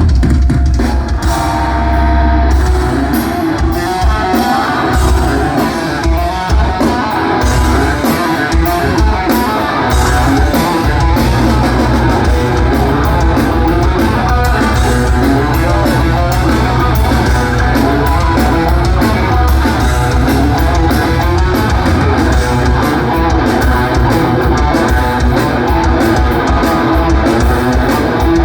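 Live heavy metal band playing loudly, with distorted electric guitars over a driving drum kit and bass.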